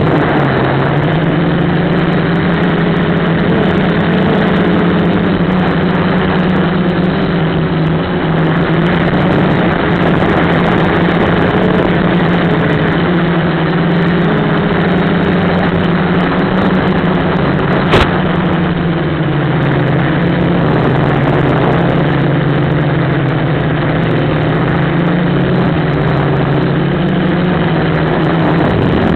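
Quadcopter's electric motors and propellers buzzing steadily in flight, the pitch drifting slowly up and down with throttle, close on the onboard camera's microphone under a steady rush of air noise. A single sharp click about eighteen seconds in.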